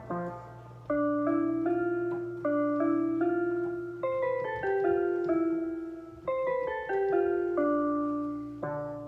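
Piano-voiced keyboard playing a slow melody one note at a time, each note starting sharply and fading away, over a steady low electrical hum.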